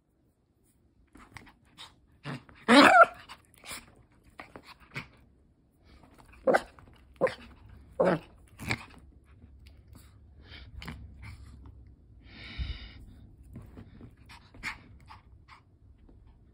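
Small Pomeranian–Chihuahua mix dog play-fighting with a hand, giving short sharp yaps and play noises in separate bursts: the loudest about three seconds in, then a quick run of four yaps between about six and nine seconds. It is rough play, not real aggression.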